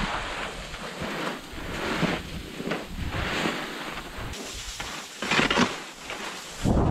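Skis scraping and sliding through snow in repeated turns on a steep slope, a swish of sliding snow with each turn every second or so, the loudest about five and a half seconds in. Wind noise on the microphone comes and goes underneath.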